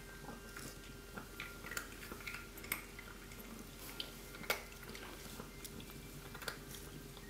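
Faint soft clicks and rustling as three-week-old kittens squirm against each other on towels while a hand strokes them, over a low steady hum.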